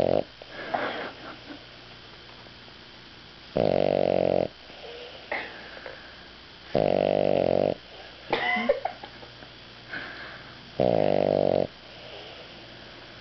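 A sleeping dog snoring: three loud, buzzy snores, each about a second long and about three and a half seconds apart, with softer squeaky breaths between them.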